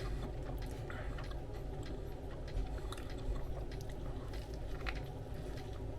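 A person chewing a mouthful of sub sandwich close to the microphone: scattered small clicks and smacks over a low steady hum.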